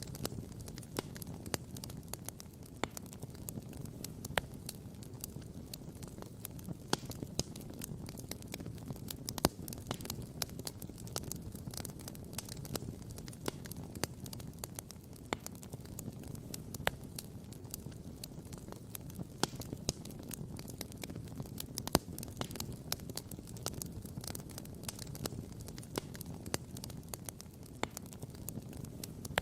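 Wood campfire crackling and popping: many sharp, irregular pops, the loudest about nine seconds in and again about twenty-two seconds in, over a steady low rush.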